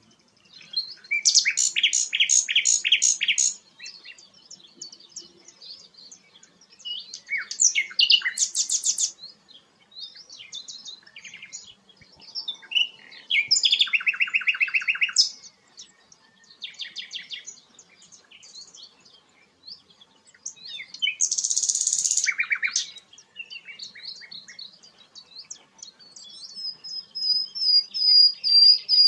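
Songbird singing in varied phrases: fast rattling trills of rapidly repeated notes alternate with short chirps and whistles, and a long thin whistled note comes near the end.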